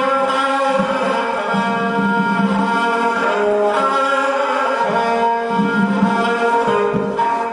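Kamancheh (Persian bowed spike fiddle) playing a sustained, sliding improvised melody, accompanied by light tombak (goblet drum) hand strokes.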